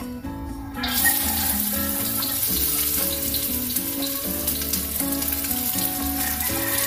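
Chopped onion in hot oil in a stainless steel wok: the sizzle starts suddenly about a second in, then fries steadily, over soft background music.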